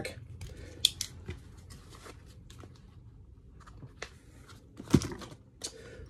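Small metallic clicks and rustling as a Leatherman Rebar multitool is folded and handled, with a louder knock about five seconds in.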